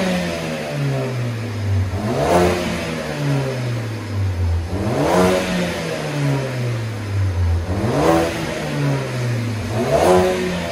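2015 Ford Focus ST's turbocharged 2.0-litre four-cylinder, on its stock exhaust, revved four times. Each rev climbs quickly and then falls slowly back toward idle.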